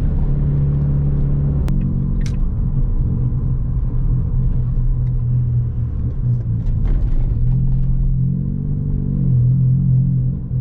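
Car engine running steadily while driving, over low road rumble; its pitch shifts slightly about two seconds in and rises a little near the end.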